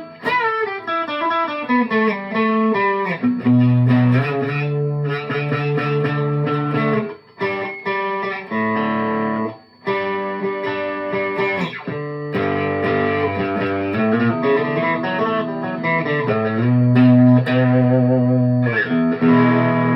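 Chapman electric guitar played through a DemonFX Steel String Supreme effects pedal: a falling run of picked notes, then chords and held notes, broken by two short pauses.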